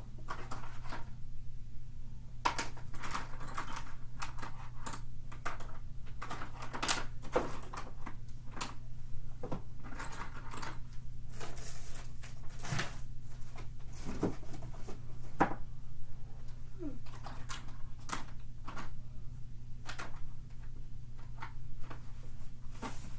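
Irregular clicks, knocks and rattles of someone rummaging through coloring supplies in search of a dark blue, over a steady low hum.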